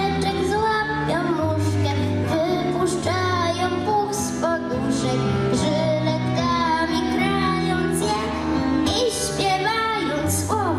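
A young girl singing a Polish song into a microphone, with held and bending notes, over an instrumental backing track with a bass line, heard through a stage PA.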